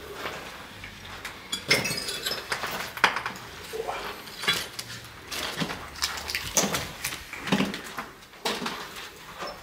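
Footsteps over a littered hard floor: uneven clinks and crunches of debris underfoot, a step about every half second to a second.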